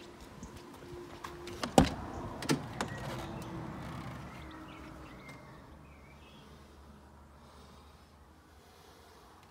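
A door of a 1997 Subaru E12 Libero van being opened. A sharp latch clunk comes about two seconds in, then two lighter knocks and a rolling, scraping noise that fades over a couple of seconds.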